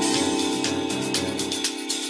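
Background music with a quick, steady percussion beat over held tones.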